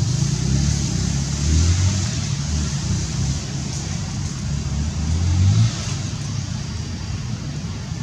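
Low rumble of a motor vehicle's engine, swelling about two seconds in and again around five seconds before dropping off sharply, over a steady high hiss.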